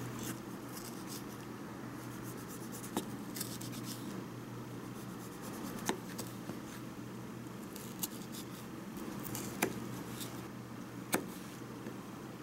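Small knife slicing and chopping a cherry tomato on a miniature wooden cutting board: soft cutting scrapes broken by several sharp taps of the blade against the board, over a steady low hum.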